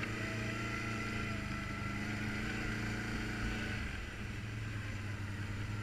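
ATV engine running steadily under way on a dirt trail, easing off slightly about four seconds in.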